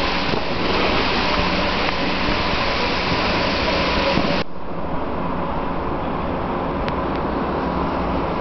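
Rushing noise of riding on snow: wind on the microphone with a snowboard gliding and scraping over the pisted snow. About four and a half seconds in it cuts abruptly to a quieter, duller steady hum of the indoor ski hall.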